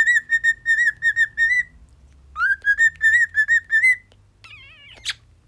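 Cockatiel whistling twice. Each phrase is a rising note that runs into a quick string of short warbled notes at one pitch and lasts about two seconds. Near the end comes a brief wavering squeak and a single smacking kiss sound, a kissing noise the cockatiel mimics.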